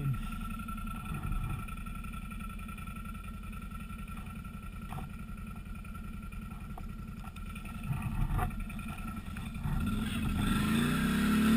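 Can-Am Outlander ATV's V-twin engine idling with a steady low throb and a few light knocks, then revving up and getting louder near the end as it pulls away.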